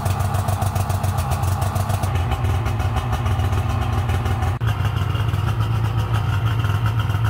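Two-stroke snowmobile engine of a 2021 Polaris RMK Khaos, fitted with a Diamond S aftermarket silencer, running steadily after being started to bleed the cooling system. There is a brief break about halfway through.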